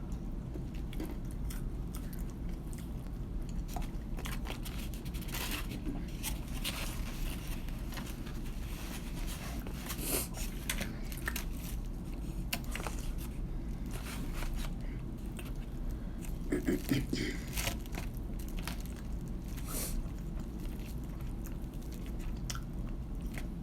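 Close-miked eating of KFC fried chicken: irregular crisp crunches of the breading being bitten, with chewing between them and a louder run of crunches about 17 seconds in.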